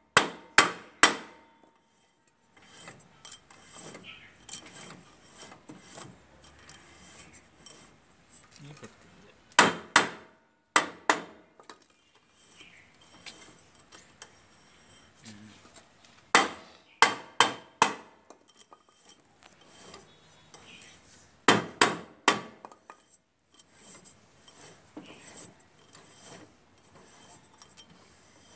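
Sharp knocks on a Bajaj three-wheeler's rear brake drum as it is fitted back onto the hub, coming in short runs of two to four strikes. Between the runs there is lighter metal clinking and rubbing as the drum is handled.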